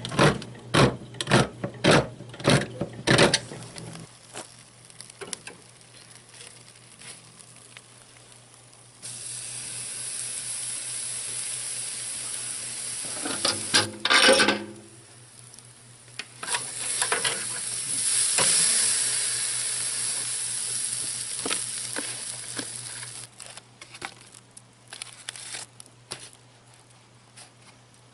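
Food sizzling as it fries in a pan, in two long stretches of steady hiss, with a louder burst between them. A quick run of sharp knocks comes in the first few seconds.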